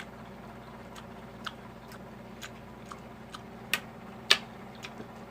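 Eating sounds: a scattered series of small sharp clicks from chewing and cutlery, about eight in all, the loudest two close together past the middle, over a steady low hum.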